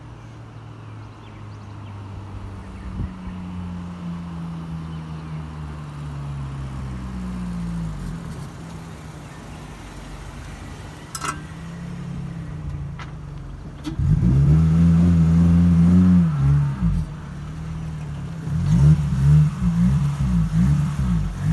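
Toyota Celica engine running as the car creeps closer. About two-thirds of the way through it is revved up loudly and falls back, and near the end it gets several quick blips of the throttle.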